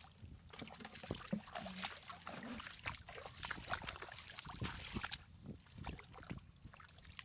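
Hands splashing and sloshing in shallow muddy water while groping for fish, in quick irregular splashes. They are busiest for the first five seconds, then thin to a few lighter splashes.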